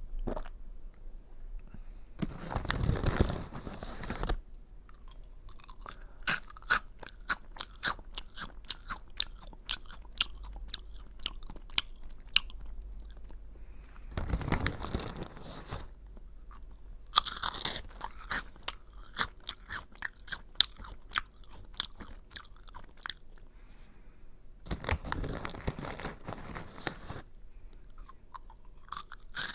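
Close-up chewing of curry-flavoured rice crackers: a steady run of sharp, crisp crunches as the crackers break between the teeth. Three times, at about two, fourteen and twenty-five seconds in, there is a longer, louder stretch of noise lasting a couple of seconds.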